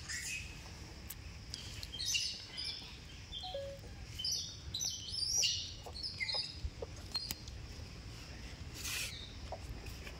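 Short, high-pitched animal chirps and squeaks in quick clusters, busiest about two and five seconds in, with a brief hiss-like burst near the end.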